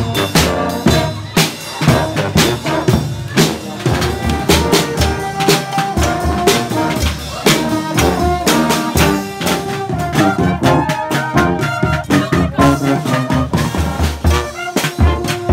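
Marching street band playing: bass and snare drums beat a steady rhythm while French horns and other brass carry a melody, the brass coming through more strongly from about four seconds in.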